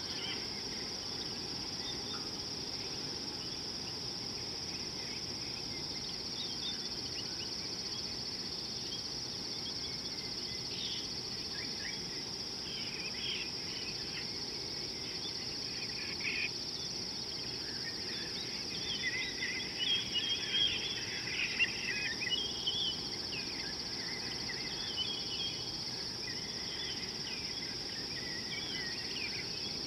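Steady high-pitched insect chorus drones without a break, with scattered short bird calls over it that grow busiest about two-thirds of the way through.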